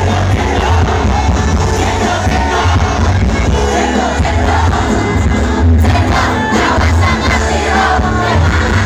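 Loud live concert music over a large PA: a band with a heavy, steady bass and a singer's voice carrying the melody, with the voices of a big crowd mixed in.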